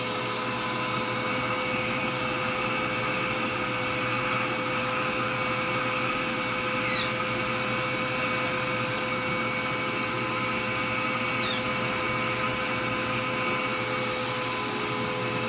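Vacuum cleaner running steadily, a constant rush of suction with a motor whine.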